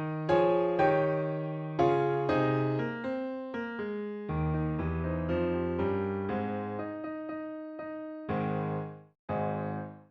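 Background music: a piano-like keyboard playing a gentle melody, each note struck and fading. It breaks off briefly near the end.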